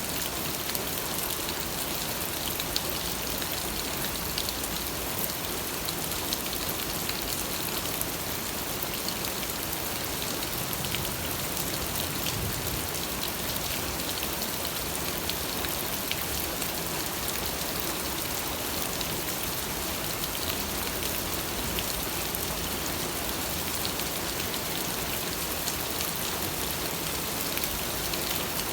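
Steady rain falling, an even hiss with scattered individual drop taps.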